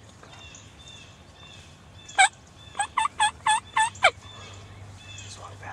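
Wild turkey gobbler gobbling once, loud and close: a sharp opening note about two seconds in, then a fast rolling run of notes.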